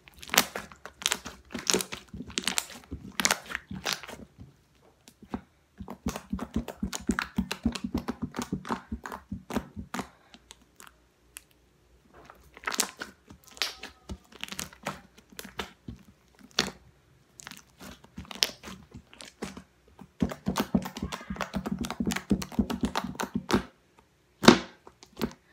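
White slime being kneaded, stretched and pressed by hand on a tabletop, making wet crackling clicks and squelchy pops in stretches with short pauses; one louder pop near the end.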